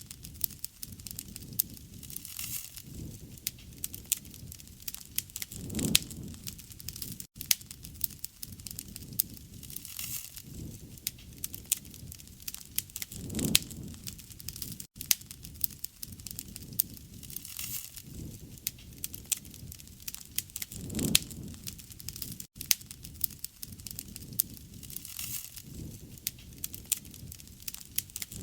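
Campfire crackling, with many sharp pops and snaps over a low rumble that swells every seven or so seconds.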